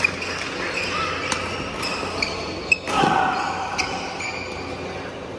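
Badminton doubles rally: several sharp racket hits on the shuttlecock, the loudest a little under three seconds in, with short shoe squeaks on the wooden court floor, in a large echoing sports hall.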